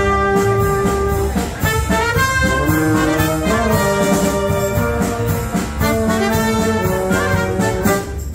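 A wind band playing a Spanish pasodoble: trumpets, trombones and saxophones carry sustained melody notes over a steady drum beat.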